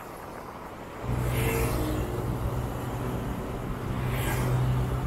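Road traffic heard from a motorcycle on the highway. About a second in, a vehicle engine's steady hum comes in loudly and holds an even pitch, with two short hissing surges over it.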